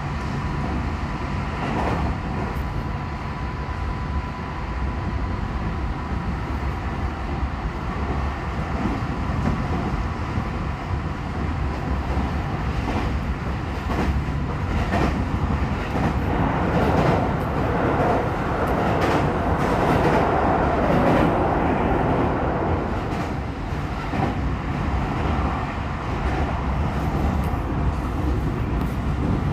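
Tokyo Metro 16000 series electric train running along the line, heard from inside a car: a steady rumble of wheels on rail with clicks over rail joints. A thin steady tone sounds over the first few seconds, and the running noise grows louder in the middle.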